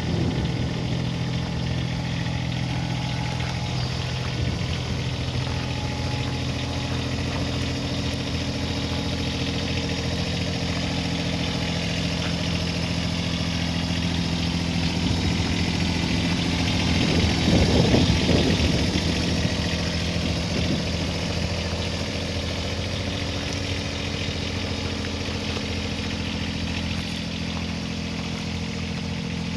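AGT Industrial QK18KXS-C mini excavator's engine idling steadily. It gets louder for a few seconds a little past halfway, then settles back.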